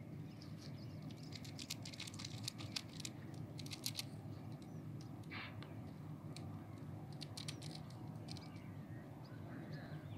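Birds chirping in quick bursts of short high notes, with one longer call about five seconds in, over a faint steady low rumble.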